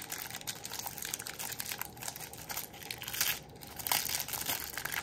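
Thin plastic wrapping crinkling and crackling in the hands in irregular bursts as it is peeled off a small phone charging brick.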